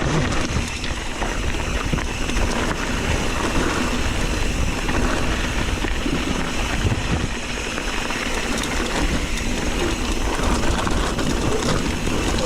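Mountain bike rolling fast down a rocky dirt trail: tyre noise and many small rattles and ticks over the stones, under a steady wind rumble on the microphone.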